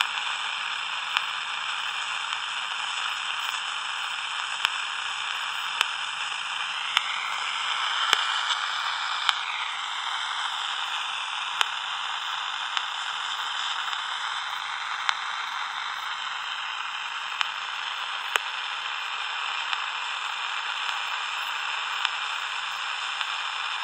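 Hiss and static from the speaker of a Danita 86 six-channel radio tuned to a channel with no voice coming through. Faint wavering whistles come and go in the middle, and there are scattered small clicks.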